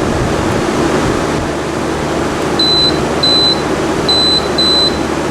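Frigidaire window air conditioner running in fan-only mode on its low setting, a steady, very loud rush of air. About halfway through, its control panel gives four short high beeps in two pairs as buttons are pressed.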